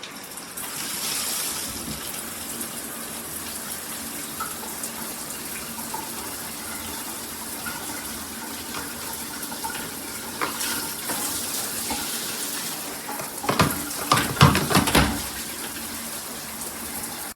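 Water spraying from a 2-in-1 rain and handheld shower head, a steady hiss of falling water. Near the end come several louder, irregular splashes and knocks.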